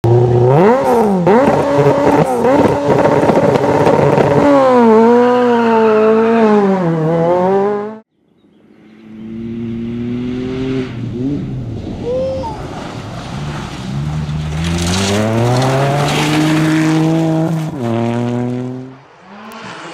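Rally car engines at full throttle on a gravel stage, the pitch climbing and dropping sharply with each gear change and lift-off. About a third of the way in the sound cuts out suddenly. It fades back in as another car comes up, revving high and then dropping off near the end.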